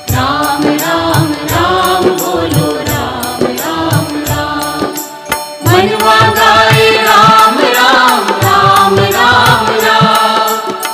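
Hindu devotional bhajan music: a melody over a steady drum beat. It grows fuller and louder about halfway through.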